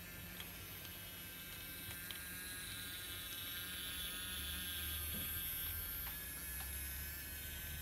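Battery-powered BRIO Old Steam Engine toy train's small electric motor whirring steadily with a high gear whine, with a few faint clicks.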